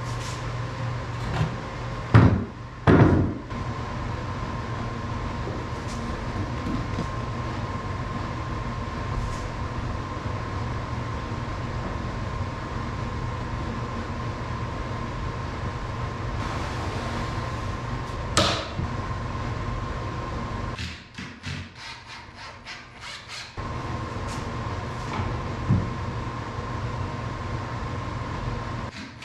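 Steady machine drone with a thin high whine running in the background, broken by loud knocks as plywood cabinet panels are set into place and clamped: two close together about two and three seconds in, and another later. The drone cuts out for a couple of seconds about three-quarters through, then resumes.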